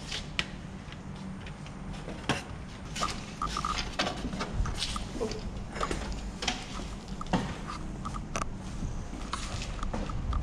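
Scattered, irregular light clicks and knocks from handling things around the car.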